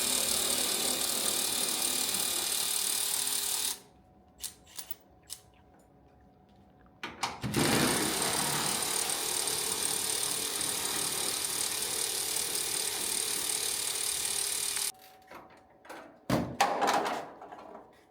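A handheld power tool runs in two long bursts, one of about four seconds and one of about eight seconds starting some seven seconds in, each spinning up as it starts. Between and after the bursts come a few clicks and a short clatter.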